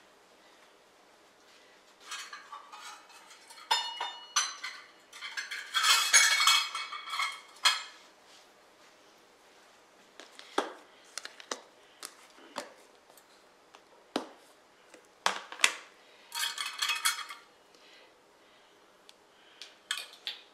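Metal kitchen utensils clinking and clattering in irregular bursts, with sharp knocks and a few short metallic rings.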